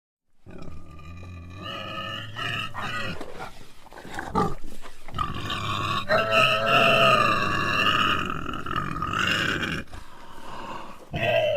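Pig squealing: shrill, pitched squeals with short choppy sounds in between. The sound starts about half a second in, and the longest, loudest squeal holds from around the middle until near the end, followed by another squeal.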